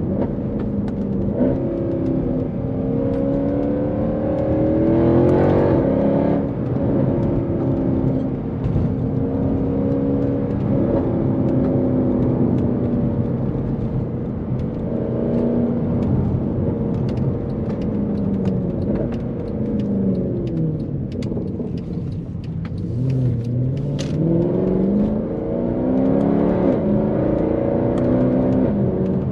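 Mercedes-Benz C63 AMG's naturally aspirated 6.2-litre M156 V8 driven hard: the engine note climbs, drops back and climbs again as the car accelerates through the gears, eases off and pulls again. A few sharp cracks show up along the way.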